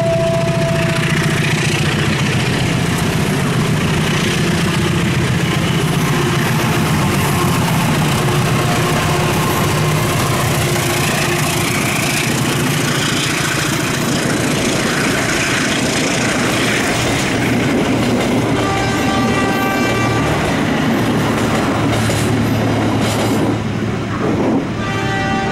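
Diesel locomotive and passenger coaches passing close by: a steady engine hum under continuous wheel-on-rail rushing. A brief high, steady tone sounds about three-quarters of the way through and again at the end.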